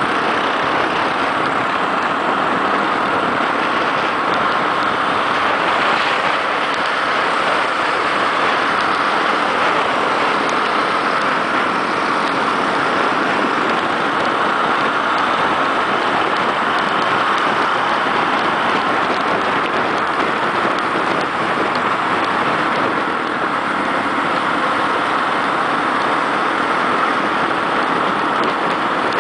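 Steady wind and road noise from a Yamaha XT660 motorcycle riding along a road at speed, with wind rushing over the camera microphone.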